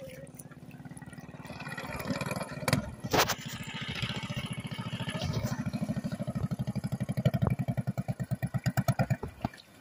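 Small engine of a motorized outrigger boat running at speed as the boat comes in, then throttled down so its firing beats slow and die away just before the end. There are a couple of sharp knocks about three seconds in.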